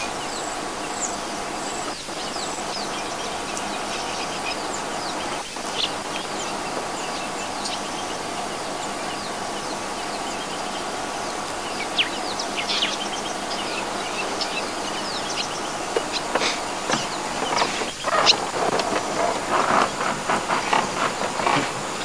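Outdoor bush ambience: a steady hiss with scattered short bird chirps, which become busier and louder in the last few seconds.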